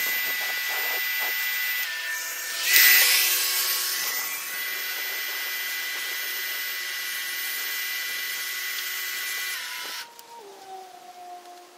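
Electric pressure washer running with a steady motor whine, with a loud burst of hissing spray about three seconds in. Near the end the machine is switched off and its motor winds down with a falling tone.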